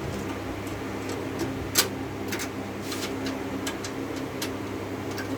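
A steady low hum with scattered sharp clicks and taps, the loudest about two seconds in.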